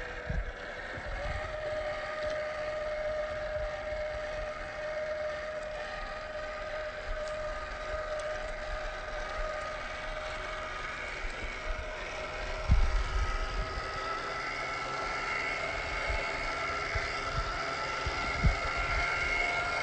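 Electric motor and gear drivetrain of a 1/10-scale RC crawler whining steadily as it drives, the whine growing stronger in the second half, with a couple of low thumps.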